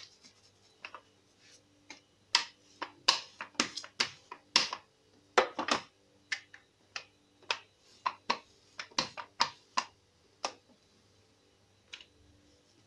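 Irregular sharp clicks and taps of a steel rolling pin and hands working a sheet of dough on a marble countertop, coming in quick clusters through the middle and thinning out near the end.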